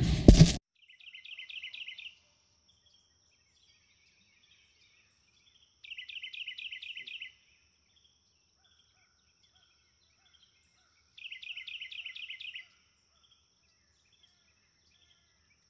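A bird repeating a short, rapid trill of descending chirps roughly every five seconds, over a faint steady high-pitched insect whine.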